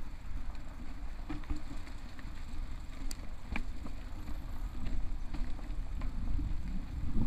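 Mountain bike riding downhill on a dirt forest trail, heard from a rider-mounted camera: a steady low rumble of tyres and wind on the microphone, with scattered sharp clicks and rattles from the bike.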